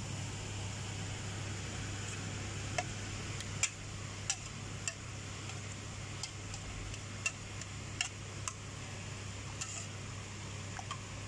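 Wire balloon whisk beating raw eggs in a large steel bowl, its wires clicking against the metal at irregular moments, about a dozen times. A steady low hum, like a fan, runs underneath.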